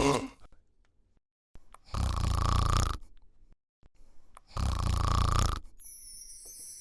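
A person snoring: two snores, each about a second long and about two and a half seconds apart. A high shimmering sound comes in near the end.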